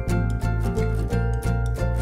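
Background music with a steady beat, about three beats a second, over a bass line.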